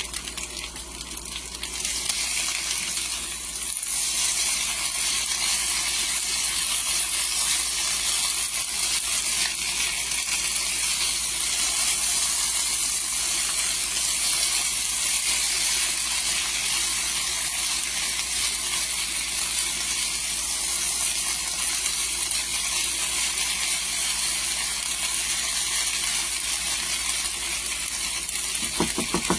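Sliced potatoes with onions and ham frying in oil in a pan: a steady sizzle that gets louder in two steps, about two and four seconds in.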